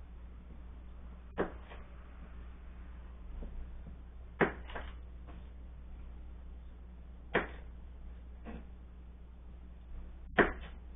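Kitchen knife knocking on a plastic cutting board while cutting garlic cloves: sharp single knocks every few seconds, a couple of them in quick pairs, over a steady low hum.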